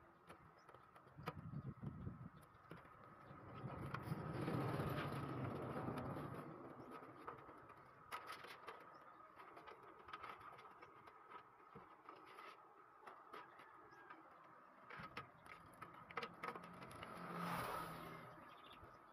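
Scattered small clicks and light knocks from handling computer parts and case hardware while a motherboard is fitted into a PC case. A broader swell of noise rises and fades twice, about four to six seconds in and again near the end.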